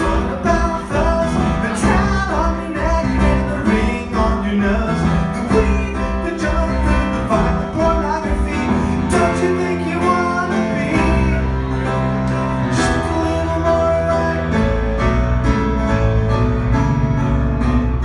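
Live music: a band's instruments play a passage of a song on stage, with little or no singing.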